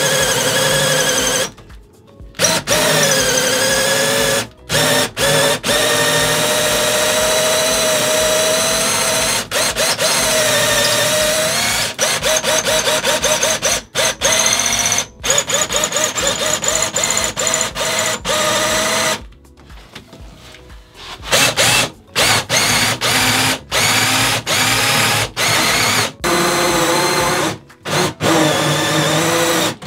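Cordless drill boring down into a kitchen worktop. It runs in long spells, its whine rising and sagging in pitch under load. After a pause in the second half, the trigger is blipped on and off many times in quick succession.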